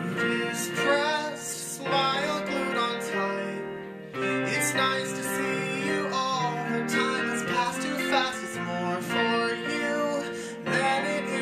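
Acoustic guitar picked and strummed together with a keyboard piano part, in a slow song.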